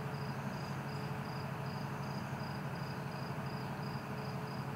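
Cricket chirping in a steady, even rhythm of about three chirps a second, over a low steady hum.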